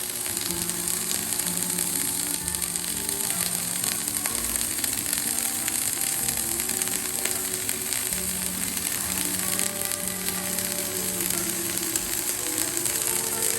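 Electric arc welding: the arc's steady crackling hiss, with background music playing over it.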